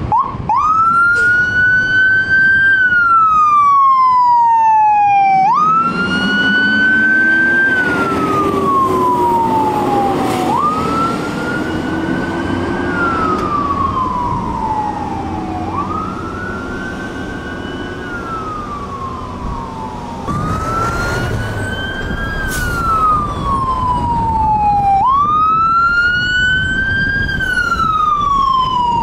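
Fire engine siren on a wail, each cycle sweeping quickly up in pitch and then falling slowly, repeating about every five seconds. A lower note climbs slowly beneath it in the middle.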